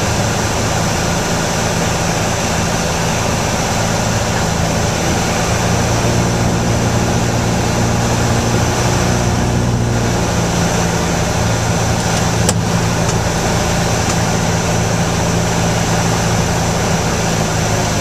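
Piper Warrior III's four-cylinder Lycoming engine and propeller droning steadily, heard from inside the cabin, with the engine note shifting slightly in pitch partway through. A single sharp click comes about twelve seconds in.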